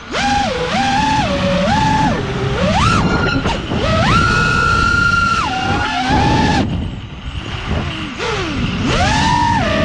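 FPV quadcopter's four Brother Hobby R6 2207 1800kv brushless motors on 6S whining, the pitch jumping up and down with each throttle punch. About four seconds in, a long high held whine; near seven seconds the throttle is chopped briefly and the sound drops, then it punches back up, with air rushing past the onboard camera.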